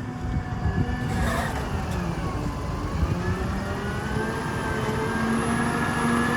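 A vehicle engine running under load. Its pitch dips about a second in and climbs back up over the next few seconds, over a heavy, rough rumble.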